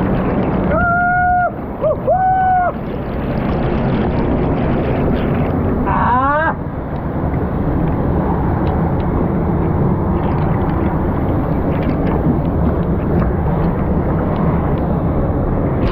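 Steady rushing of water from a monsoon-swollen stream or waterfall. About a second in come two short, high held calls, and about six seconds in a quick run of falling chirps.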